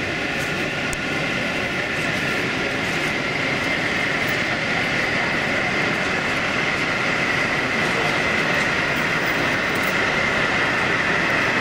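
Model diesel locomotive hauling a goods train along a model railway layout: a steady running sound with a high, even note that grows a little stronger as the train approaches.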